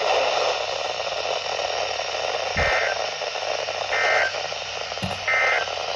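Weather radio reception with a steady static hiss and three short, identical warbling data bursts, a little over a second apart. These are the SAME end-of-message codes that close a NOAA Weather Radio warning broadcast.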